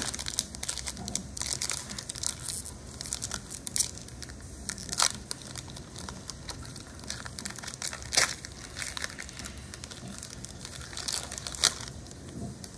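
Foil wrapper of a Pokémon Silver Tempest booster pack crinkling and crackling as it is handled, with a few louder crackles along the way.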